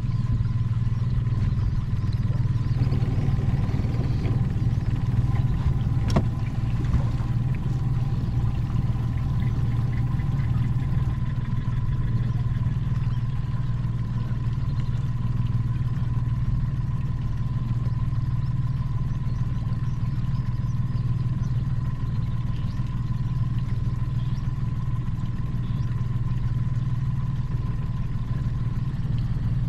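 Boat's Mercury outboard motor running steadily, a deep even drone, with a faint steady whine over it that stops near the end and a single sharp click about six seconds in.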